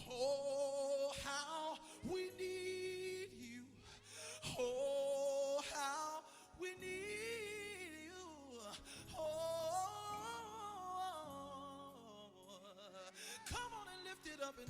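Slow worship song: a woman sings long, wavering held notes that glide between pitches over soft sustained accompaniment.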